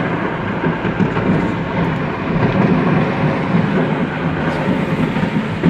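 A dense, continuous crackling rumble with no gaps: stored fireworks going off together in one unbroken barrage.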